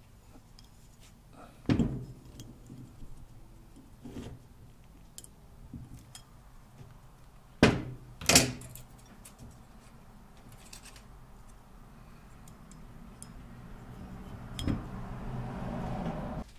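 Steel parts of a hydraulic jack handled and knocked against a metal workbench: a few sharp clanks, the loudest two in quick succession near the middle. A hiss swells over the last few seconds and then stops.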